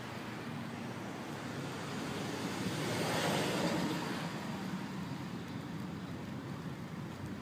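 Steady rushing outdoor background noise that swells once, about three seconds in, and falls back.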